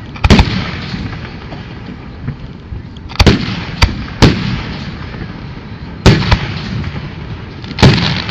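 Fireworks exploding: about six loud booms at irregular intervals, two of them close together about a second in, each trailing off in an echo.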